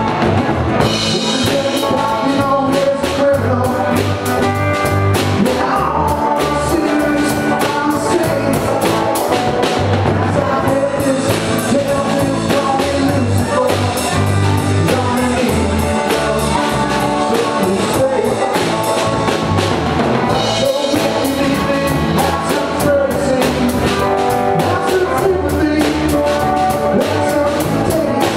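Live rock band playing: electric guitars and a drum kit in a steady groove, with a man singing over them.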